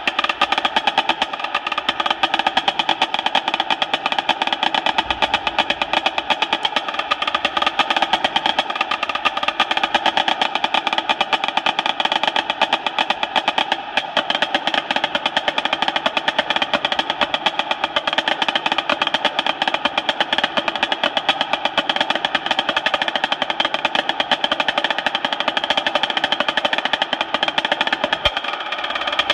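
Dynasty marching snare drum played with sticks in a rudimental snare solo: a fast, unbroken stream of strokes and rolls.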